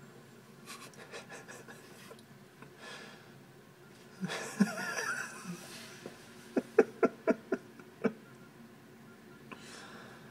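A person near the microphone laughing. There are breathy snickers about a second in, then a louder wavering burst around four seconds in, then a run of about six quick, sharp ha-ha pulses.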